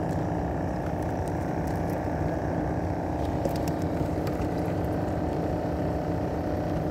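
A motor engine running steadily at an even pitch, a low steady hum with no speech over it.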